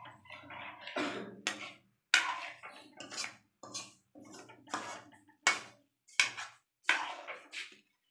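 Metal spoon stirring chicken curry in a metal kadai, scraping and knocking against the pan in about a dozen short irregular strokes, roughly two a second.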